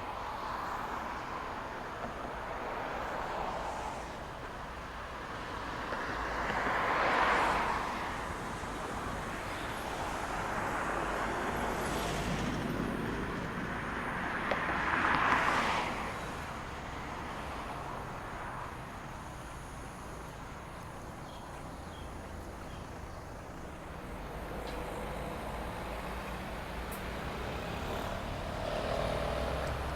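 Road traffic: cars passing one after another, with two louder passes that swell and fade about seven and fifteen seconds in.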